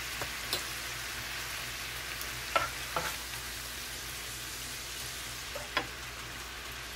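Beef and squid sizzling steadily in oil in a nonstick frying pan while being stir-fried with a wooden slotted spatula. The spatula knocks against the pan four times: about half a second in, twice around three seconds in, and near the end.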